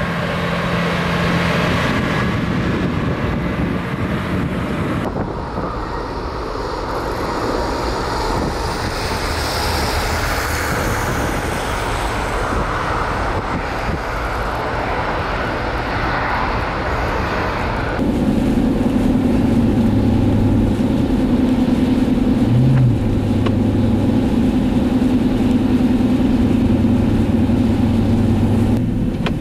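Steady vehicle and machinery noise that changes at two cuts. First a Caterpillar motor grader's diesel engine runs. Then comes airport apron noise with aircraft while a plane is sprayed with de-icing fluid. From about two-thirds of the way through, there is a steady engine and road drone from inside a car driving on a slushy highway.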